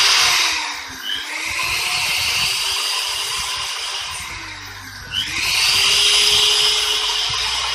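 Electric drill running at full speed with a ballpoint-refill bit, stiffened with iron wire, boring into the edge of a particle board. The motor pitch dips and recovers about a second in and again near five seconds in as the load on the bit changes.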